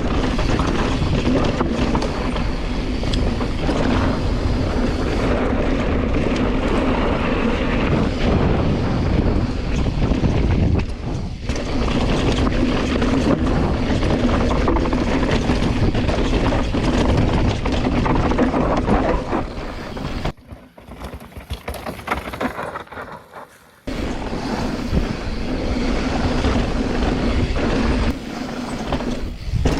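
Wind buffeting the microphone and tyres and frame rattling over rocky dirt as a Specialized Turbo Levo electric mountain bike is ridden downhill, with a steady low hum underneath. The noise drops away for a few seconds about twenty seconds in, then picks up again.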